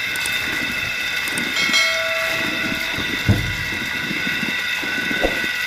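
Hand pump on a newly bored tube well being worked by its handle, with a few heavy knocks from the pump strokes and water pouring from the spout. A steady high whine runs underneath, and a brief squeal is heard about two seconds in.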